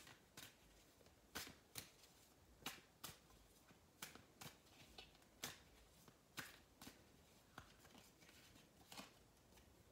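A deck of Symbolon oracle cards being shuffled by hand: faint, irregular card taps and slaps, about one or two a second.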